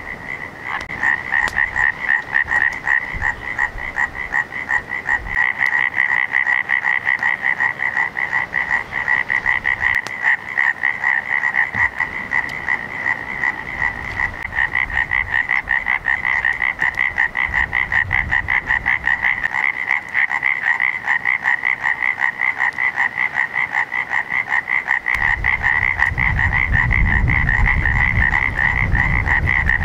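A chorus of frogs calling at night, a dense, fast-pulsing trill that never lets up. A low rumble joins in near the end.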